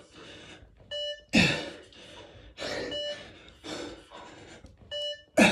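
Short electronic timing beeps, one every two seconds (three in all), pacing a press-up test. Between them come heavy gasping breaths and strained exhales from the exerciser, loudest just after the first beep and near the end.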